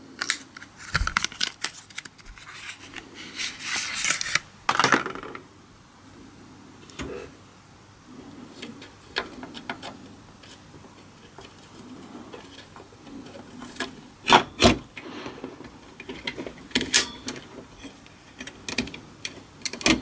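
Memory modules being handled and pressed into a server's RAM slots: rustling and small plastic clicks for the first few seconds, then quieter handling, and a few sharper clicks a little after the middle as the sticks are seated.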